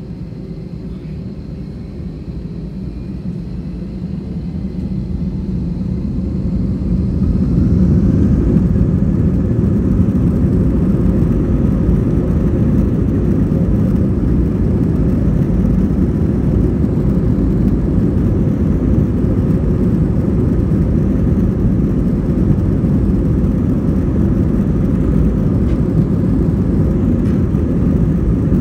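Airbus A321-231's IAE V2500 turbofan engines spooling up to takeoff thrust, heard from inside the cabin over the wing. A rising whine and growing rumble build over the first several seconds, then the engine noise holds steady and loud with runway rumble through the takeoff roll.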